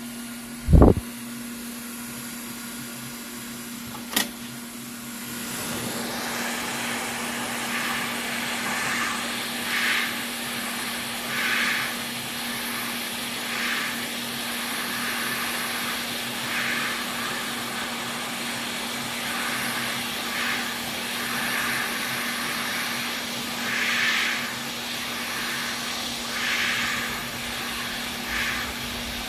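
A steady rush of air from a small motorised tool sets in about five seconds in, swelling and easing every second or two over a low steady hum. Before it there is one loud low thump and then a sharp click.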